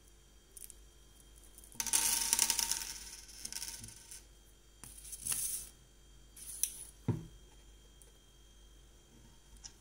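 Craft materials being handled on a tabletop: a loud rustling clatter about two seconds in, then a few shorter rustles and light knocks.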